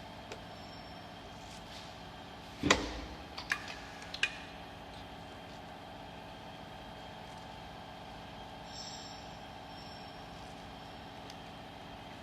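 Round-bottle sticker labeling machine running with a steady hum. About three seconds in there is one sharp knock, followed by two lighter clicks within the next second and a half.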